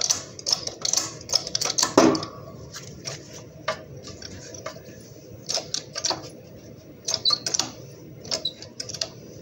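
Scattered metal clicks and clinks as a driveshaft universal-joint yoke and its cross are handled, with a louder ringing metal knock about two seconds in.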